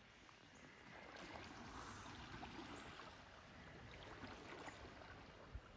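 Faint, steady rush of a shallow river flowing, with one soft bump near the end.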